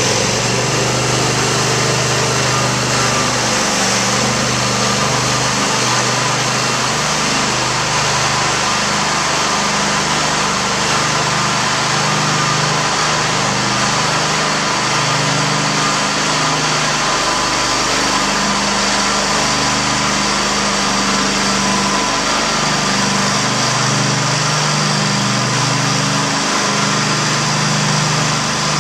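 Small gas engine of a twin-pad floor-cleaning machine running steadily while it spray cleans a tile floor. Its note wavers slightly as the machine is pushed along.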